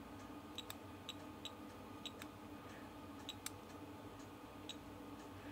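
Faint short high beeps and small button clicks from an NV17 tweezer multimeter, about half a dozen at irregular intervals, as its buttons are pressed to step the signal generator's frequency digits.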